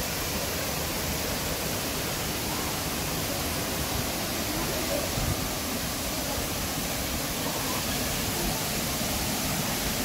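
Steady, even rushing of Kiyomizu Falls, a 75 m-high waterfall, its water plunging into the pool below.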